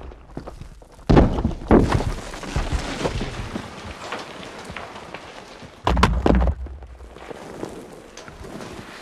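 Landslide: earth and rock crashing down in heavy thuds with a low rumble, twice in quick succession about a second in and again near six seconds, with a steady patter of small debris trickling in between.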